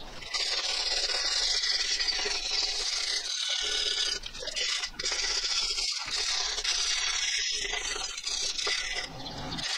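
Hand wire brush scrubbing back and forth over the metal deck of a Shanks 553HRS mower, a steady scratchy scraping with a few short breaks between strokes, cleaning the deck down to prepare it for paint.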